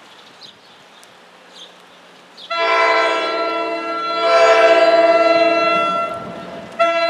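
Approaching New Jersey Transit commuter train sounding its horn: a loud chord of several tones, one long blast beginning about two and a half seconds in and held for about three and a half seconds, then a second blast starting just before the end.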